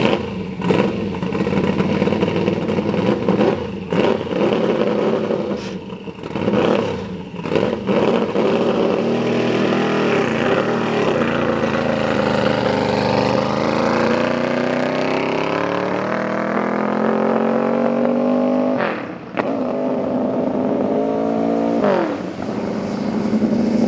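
Land-speed race car engine revving in short blips, then pulling away under hard acceleration, its pitch climbing steadily. It breaks off briefly twice near the end for gear shifts.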